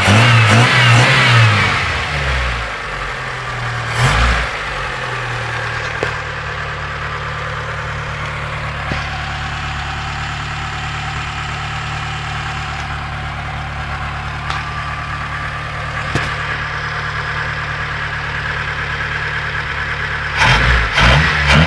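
Mitsubishi 4G13 inline-four petrol engine revved, settling to a steady idle about two seconds in, with a short blip of throttle soon after, then revved again near the end. It carries a knock that the owner suspects comes from incorrect valve clearance.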